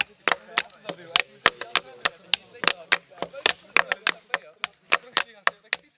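Rapid, irregular sharp clicks or knocks, about four or five a second, with faint voices beneath.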